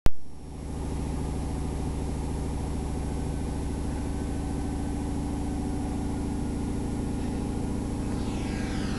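Steady low droning rumble with a fast even pulse, like an idling engine, opening the dance track. Sweeping tones that fall in pitch come in about a second before the end.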